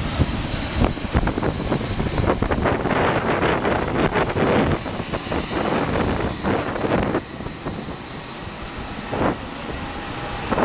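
Steady machinery drone of airport apron equipment around a parked airliner, with wind gusting on the microphone. A faint high whine runs through the first part and fades out about two-thirds of the way through.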